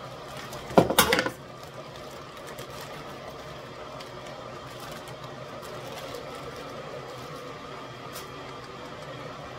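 Frozen mixed vegetables tipped from a plastic bag into a steel pot: a brief loud rattle and crinkle about a second in. Under it an electric kettle heating water runs with a steady hum.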